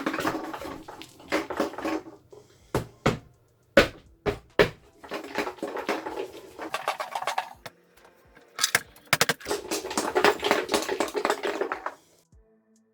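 Scraping and crunching as a blade pries at a particle-board speaker cabinet, in three long stretches with a few sharp cracks between them.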